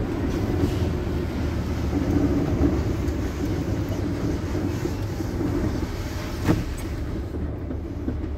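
Truck cab interior while driving: the engine and road noise make a steady low rumble. A single short knock comes about six and a half seconds in.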